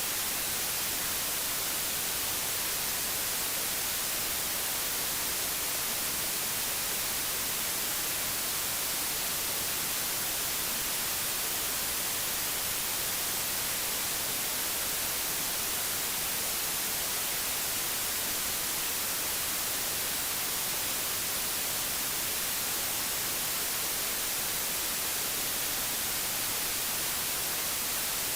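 Pure digital white noise: a steady, even hiss that never changes or breaks.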